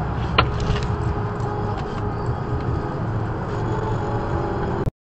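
Steady low road and engine rumble heard inside a car cruising at highway speed, with one sharp click about half a second in. The sound cuts off suddenly near the end.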